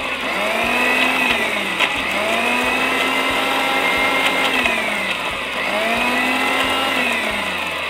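Electric mixer grinder with a stainless steel jar running continuously, grinding soaked almonds, cardamom and hot water into a coarse paste. Its pitch rises and falls a few times.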